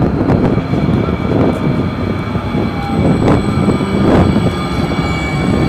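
Hudson-Bergen Light Rail car (a Kinki Sharyo low-floor LRV) rolling into the station: a steady rumble of wheels on rail, two sharp knocks a little over three and four seconds in, and a faint high whine that grows near the end as it slows.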